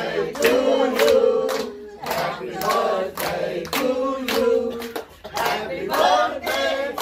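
A group of people singing together, with hands clapping along to the beat.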